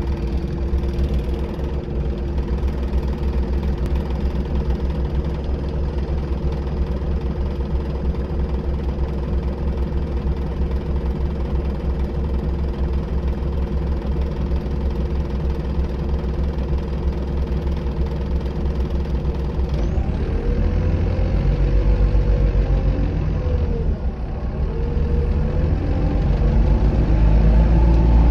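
Optare Solo SR bus's diesel engine heard from inside the rear of the saloon, running with a steady hum. About twenty seconds in, the engine note rises and falls twice as the bus moves off, getting louder near the end.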